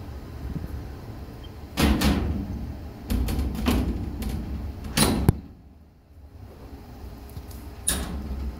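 Several sharp metallic bangs and clunks from the steel hood doors and latches of a shut-down EMD CF7 locomotive as they are worked, over a steady low rumble.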